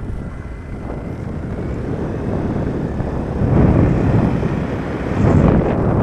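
Wind buffeting the microphone of a camera carried on a moving motorbike, with the bike's engine and road noise beneath. The wind grows louder about three and a half seconds in and again near the end.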